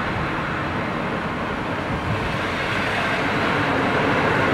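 PKP Intercity passenger carriages rolling past on the track as the train pulls out of the station: a steady rumble of wheels and bogies, growing slightly louder in the second half.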